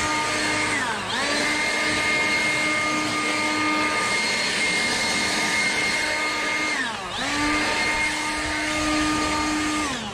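DeWalt 20-volt brushless cordless yard tool's motor running at full speed with a steady high whine. The trigger is eased off twice, the whine dipping and spinning straight back up, and near the end it is released and the whine falls away as the motor spins down.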